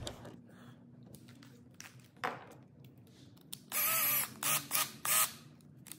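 Cordless drill spinning in about four short trigger bursts, each whir rising and falling in pitch, the first and longest about two-thirds of the way in, after a few faint handling clicks.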